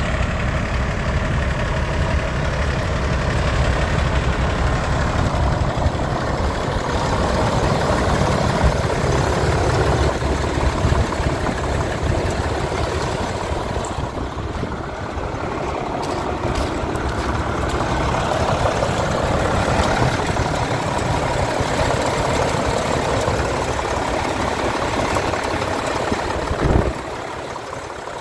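International 8100 truck's diesel engine idling steadily, heard close to the open engine bay in the second half. A single brief thump near the end.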